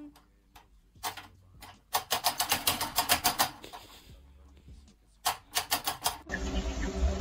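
A cat's paws batting at the hanging pendulum of a wall clock, setting off runs of quick clicking taps, about eight a second. A long run starts about two seconds in and a shorter one about five seconds in.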